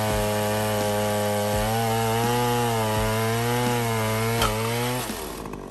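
Holzfforma G070 105.7 cc two-stroke chainsaw running at full throttle while cutting through a large maple round, its engine note steady with slight wavers in pitch under load. The sound drops away about five seconds in.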